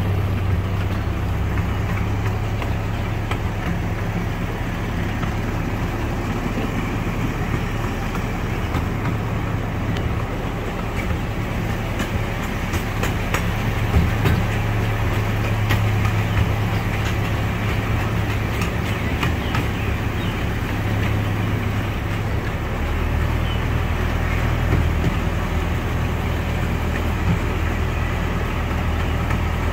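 Miniature park train running along its track: a steady engine drone from the small locomotive, whose note shifts about two-thirds of the way through, with scattered clicks and rattles from the moving train in the middle stretch.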